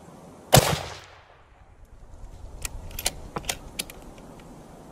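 A single scoped-rifle shot firing a 168-grain boat-tail hollow-point match handload, about half a second in, with a short echoing tail. A second or two later comes a quick run of sharp metallic clicks as the rifle's action is worked for the next round.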